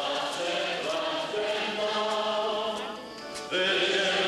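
Many voices singing a slow church hymn together, with long held notes; the singing dips briefly and a new, louder phrase begins about three and a half seconds in.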